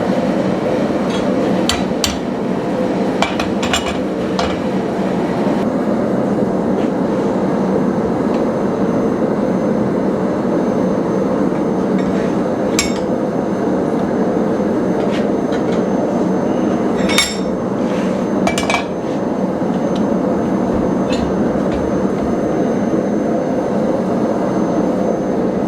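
Scattered sharp metallic clinks and taps of a steel bar being handled and struck, over a steady loud rushing noise from running shop equipment.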